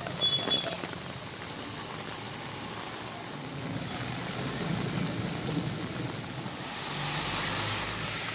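Street ambience of heavy rain, with floodwater running and motor vehicles driving through it; a vehicle passes, loudest about seven seconds in. A couple of sharp knocks at the very start.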